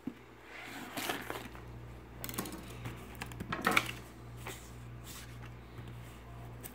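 A taped cardboard box being cut open with a knife and handled, giving scattered scrapes and rustles with the loudest about two-thirds of the way through. A steady low hum runs underneath.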